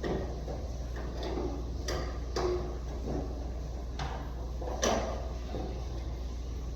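Scattered light clicks and knocks of plastic parts being handled as the wall unit's drain hose is fitted into its drain tube. The sharpest knocks come about two and a half and five seconds in.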